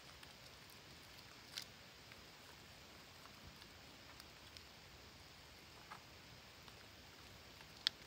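Near silence: a faint steady hiss broken by a few brief, sharp clicks, the loudest just before the end.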